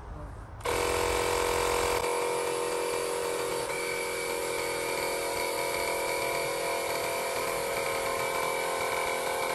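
Makita MP180DZ cordless tyre inflator switches on just under a second in and runs steadily, its compressor pumping air into the mini tiller's flat tyre.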